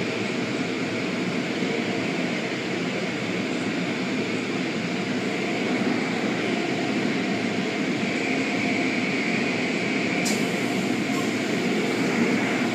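Steady mechanical rumble and hiss with no clear rhythm, broken by a single sharp click about ten seconds in.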